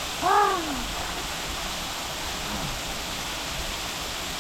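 Silver Falls waterfall: a steady rush of falling water, heard close by. A short voiced exclamation with a rising-then-falling pitch comes about half a second in.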